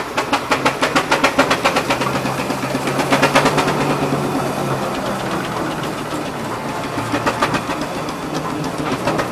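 Steam traction engine driving past, beating in a fast, even rhythm of about six strokes a second, loudest in the first few seconds and again near the end.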